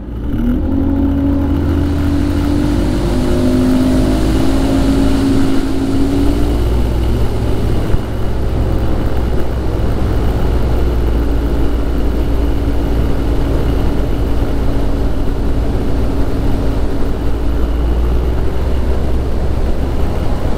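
Bass boat's outboard motor running at speed, its pitch climbing over the first several seconds as the boat gets up to speed, then holding steady under a constant rush of wind and water.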